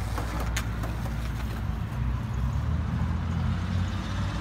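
Low, steady rumble of skateboard wheels rolling on rough asphalt, mixed with road traffic, with a sharp click about half a second in.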